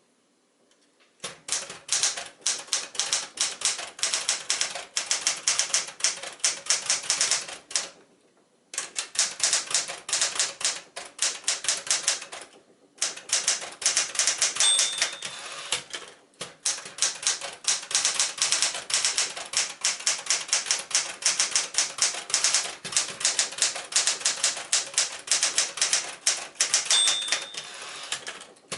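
Smith-Corona Galaxie Twelve manual typewriter being typed on at a quick pace, in runs of rapid key strikes broken by brief pauses. The carriage's margin bell gives a short ding twice, about halfway through and near the end.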